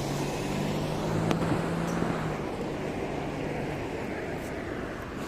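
Road traffic: a motor vehicle's engine hum that fades away about three seconds in, over steady street noise.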